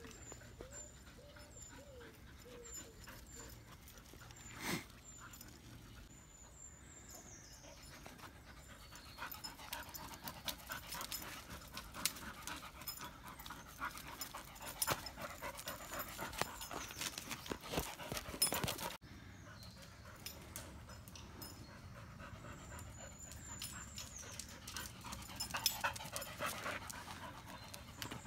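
A dog panting as it trots about, with scattered clicks and scuffs, busiest in the middle and again near the end.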